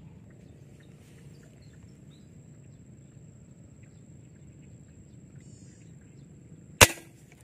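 A fishing airgun fires once near the end, a single sharp crack, the shot at a fish in the creek. Before it there is only faint outdoor background with a steady, thin high tone.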